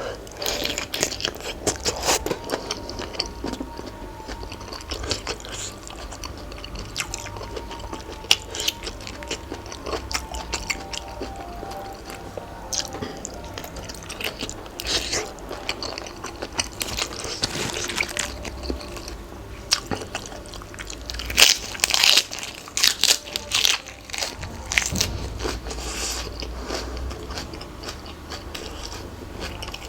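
Close-miked eating: repeated crunching bites and chewing of a Thai pounded seafood salad with crisp raw vegetables. The crunches cluster most densely a little past two-thirds of the way through.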